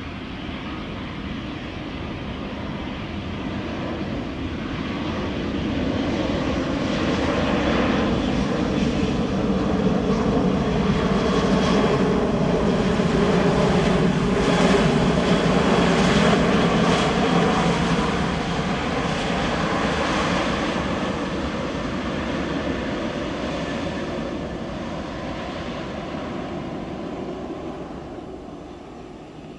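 Airbus A320-family airliner's twin jet engines running at high power down the runway: the noise swells as it nears, is loudest as it passes close by, and fades as it moves away, its engine tones dropping in pitch as it goes by.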